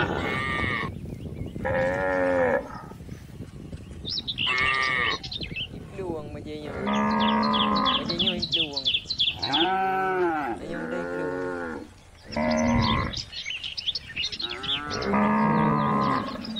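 Cattle mooing repeatedly, one call after another, some calls long and drawn out and others short, with high chirping in the background about halfway through.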